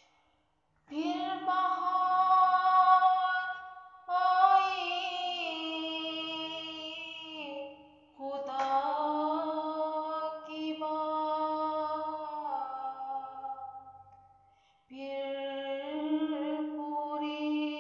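A woman singing an Urdu nazm unaccompanied, in slow phrases of long held notes separated by brief silences.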